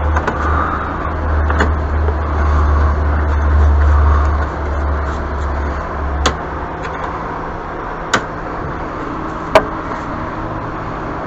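A loud low rumble from a motor that cuts out about six and a half seconds in, followed by three sharp clicks.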